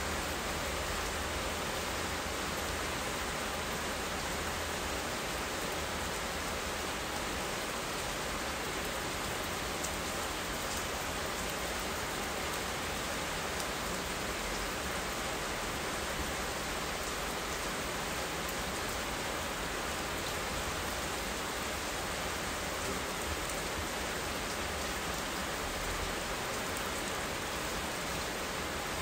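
Steady rain falling, an even unbroken hiss with a few faint drop ticks.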